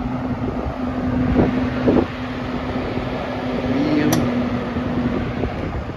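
Late-1960s Wards Signature 20-inch box fan with its Hunter/R&M motor running in forward (intake), a steady rush of air with a steady motor hum. A single sharp click about four seconds in.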